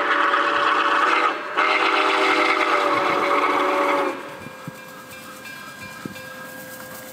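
Nickel Plate Road No. 765 steam locomotive's whistle blowing loud, several tones at once: a long blast, a brief break about a second and a half in, then a second long blast that cuts off about 4 seconds in, leaving the much quieter sound of the approaching locomotive.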